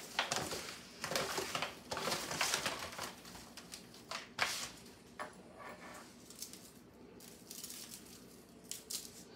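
Disposable aluminium foil pan crinkling and rustling as gloved hands toss cut brisket cubes in it, in irregular bursts for the first five seconds, then quieter with a few faint taps.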